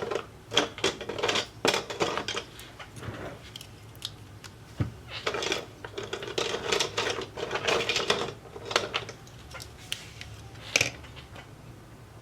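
Small hand tools clicking and scraping against a smartwatch and the workbench during repair, in two busy clusters with a short pause between them and a single sharp click near the end.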